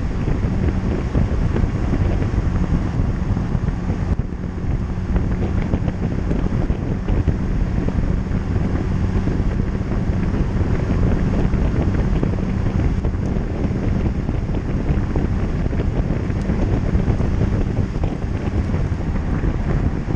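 Loud tyre and road roar with wind buffeting on a Mazda MX-5 ND2's bumper-mounted camera, under which the car's four-cylinder engine drones at a steady pitch while cruising.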